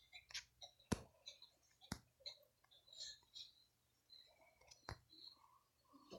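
Quiet drawing sounds: three sharp clicks, about a second in, about two seconds in and near five seconds, among faint light scratching.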